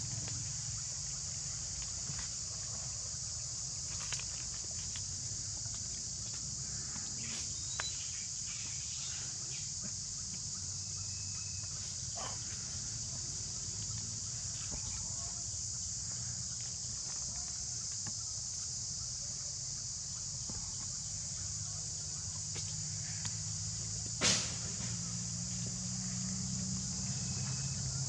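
Steady high-pitched insect chorus, a continuous buzz of crickets or similar insects, over a low steady rumble, with a few faint clicks and one sharper click about 24 seconds in.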